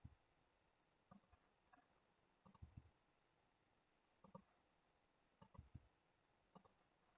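Near silence broken by faint computer mouse clicks, about eight at irregular intervals, some in quick pairs.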